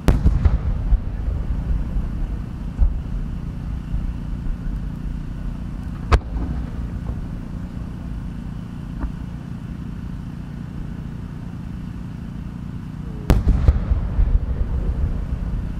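Large 10-inch aerial firework shells bursting: a heavy boom with a long rolling rumble at the start, a single sharp crack about six seconds in, and a second heavy boom with rumble and crackle about thirteen seconds in, over a steady low background rumble.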